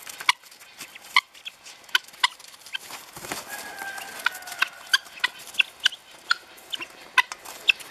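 Helmeted guinea fowl feeding from a metal bowl of grain: irregular sharp clicks of beaks pecking at the bowl, one or two a second, mixed with short clucking calls.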